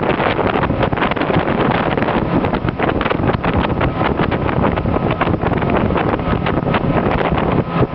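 Wind buffeting the microphone on a moving motorboat, in gusts over the steady rush of the boat's engine and wake.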